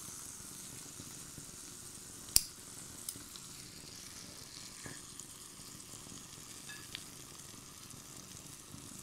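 Chicken pieces sizzling steadily in olive oil and marinade in a clay tagine over low heat, the liquid just coming to a simmer. A few sharp clicks sound over it, the loudest about two and a half seconds in.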